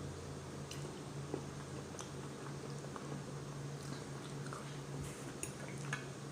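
A person chewing a mouthful of tofu scramble, with a few faint clicks scattered through, over a steady low hum.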